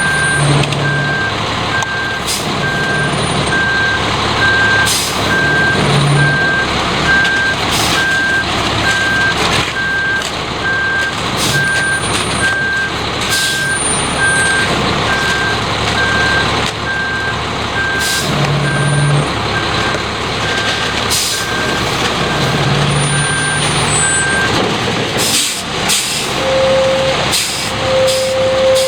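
Concrete mixer truck running, with its reversing alarm beeping at a steady even pace; the beeping stops about three-quarters of the way through and a steady lower tone comes in near the end.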